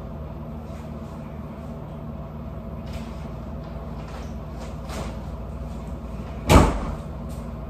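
A steady low room hum with a few faint ticks, then a single loud thump about six and a half seconds in, like a door or cupboard being shut.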